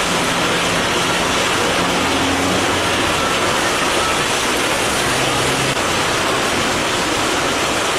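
Heavy rain falling on a flooded street, a steady hiss with no letup.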